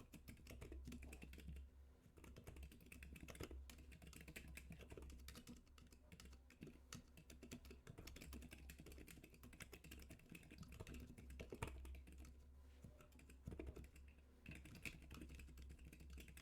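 Typing on a Keyball 39 split keyboard with ZIFRIEND Panda Silent linear switches and blank white Cherry-profile keycaps: quiet, muted keystrokes in quick continuous runs with a few brief pauses.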